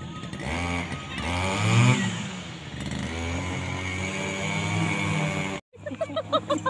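A small engine running steady, its pitch rising and falling briefly about a second in; it cuts off suddenly near the end.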